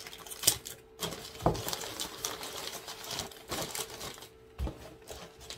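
Crumpled newspaper packing and shredded paper rustling and crinkling as newspaper-wrapped bundles are handled and pulled from a box, with scattered small clicks and two dull thumps, about a second and a half in and near the end.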